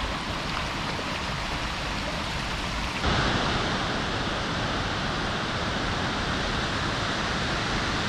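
Rushing water: a spring-fed stream running over rocks, then about three seconds in a sudden change to the louder, steady rush of Shiraito Falls, a wide waterfall of many strands of spring water.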